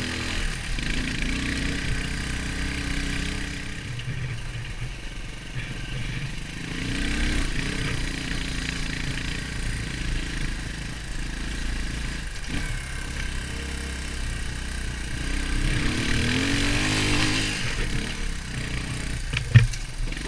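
Beta Alp 200 dirt bike's single-cylinder four-stroke engine running while ridden, its revs rising and falling with the throttle. There is a knock about twelve seconds in and a few sharp clacks near the end.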